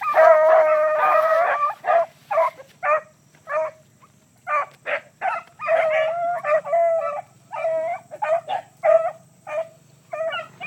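A pack of beagles baying on a rabbit's trail. Several voices overlap at first, then come single short bays, a lull about four seconds in, and a fresh run of calls from about five and a half seconds.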